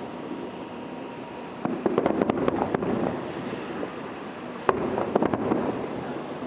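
Fireworks display: two bouts of rapid crackling pops, about two seconds in and again near five seconds, over a steady background rumble.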